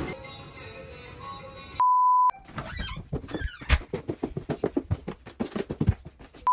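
Background music, then a steady pure beep tone of about half a second, followed by a quick irregular run of clicks and knocks, and the same beep again at the end.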